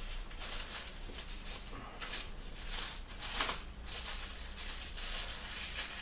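Thin plastic bag crinkling and rustling as it is worked over a camera, with a few louder crinkles in the middle.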